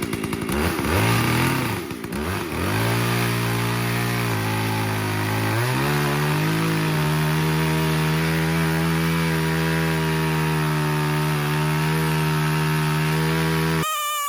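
Jonsered 670 two-stroke chainsaw running in an Alaskan chainsaw mill. Its engine pitch wavers for the first couple of seconds, then holds steady, stepping up once about six seconds in. The sound cuts off suddenly near the end.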